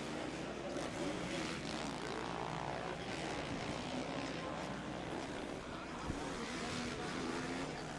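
450cc four-stroke motocross bike engine revving hard, its pitch rising and falling again and again as the rider works the throttle through the turns.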